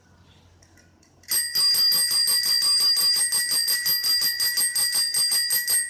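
Rusty bicycle bell rung continuously, a fast trill of about nine strikes a second over a steady bright ring, starting about a second in.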